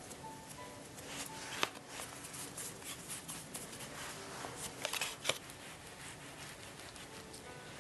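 Hands pressing and shaping soft, starch-dusted mochi around a strawberry over a metal tray, making soft rustling and patting with a few sharp clicks, one about a second and a half in and two near five seconds.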